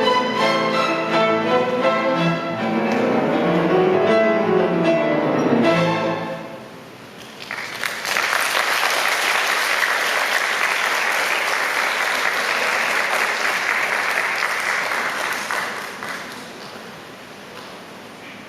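Orchestra with strings and two pianos playing the final bars of a piece, with sweeping piano runs, and ending about six seconds in. Audience applause follows for several seconds, then fades near the end.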